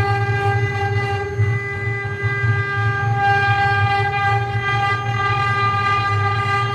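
Mini CNC wood-carving router running, its spindle giving a steady, unchanging whine over a fluttering low hum.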